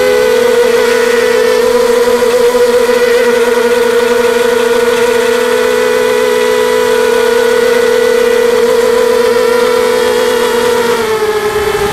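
Brushless motors of an FPV racing quadcopter whining at a steady high pitch, recorded by the camera on board, with the pitch dropping slightly near the end.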